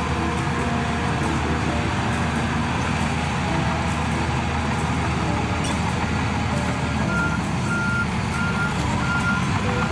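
Electronic sound effect from a battery-powered toy bulldozer: a recorded heavy-machine engine rumble, joined about seven seconds in by a run of short, evenly spaced reversing beeps.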